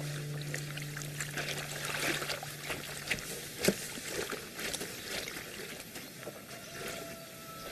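Laundry being washed by hand in a wooden trough: water splashing and trickling as a wet cloth is worked and squeezed, with a sharp knock about three and a half seconds in. A held musical chord fades out over the first three seconds.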